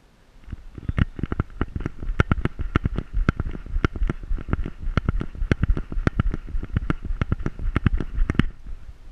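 Camera harness on a running Pointer jolting with each stride: a fast, uneven run of knocks and thuds, several a second, over a light rattle. It starts about half a second in and stops shortly before the end as the dog slows.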